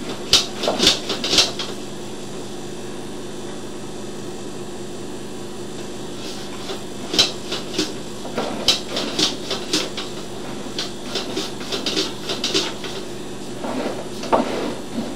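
Sewer inspection camera's push cable being fed down a drain line: bursts of sharp clicking and rattling over a steady hum, a short cluster near the start and a longer run through the middle.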